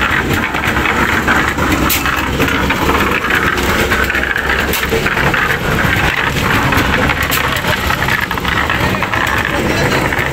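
Concrete mixer's engine running steadily, with a few sharp clicks along the way.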